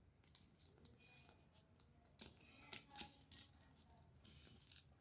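Faint rustling and creasing of a sheet of paper being folded by hand, with a couple of soft crinkles a little before and around three seconds in.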